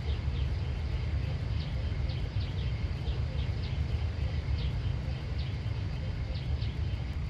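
Outdoor field ambience: a steady low rumble under short, high chirps that repeat about twice a second.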